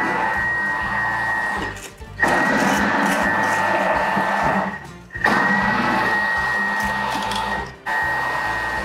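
Thermomix TM6 motor spinning its blade through soapy water in the bowl on the pre-clean dough setting, a self-cleaning cycle. It runs in stretches of two to three seconds with a steady high whine, stopping briefly three times.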